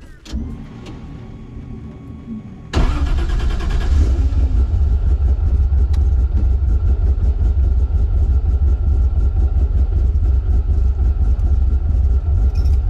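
Toyota 1JZ turbocharged inline-six in a Fox-body drag car firing up about three seconds in, after a quieter whine. It then runs steadily at idle, loud inside the cabin.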